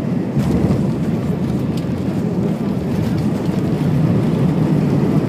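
Airbus A320 cabin noise during the ground roll after landing: a steady low rumble of the jet engines at low thrust and the wheels on the runway, with a few faint rattles.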